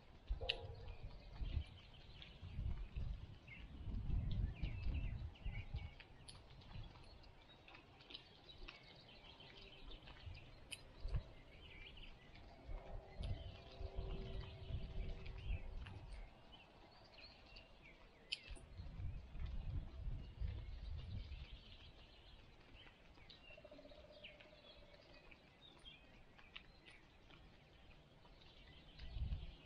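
Birds chirping and calling here and there, against irregular low rumbles of wind gusting on the microphone that come and go every few seconds.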